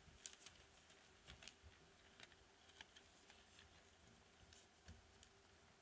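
Near silence: a faint steady hum with scattered faint clicks and rustles, handling noise at a lectern microphone.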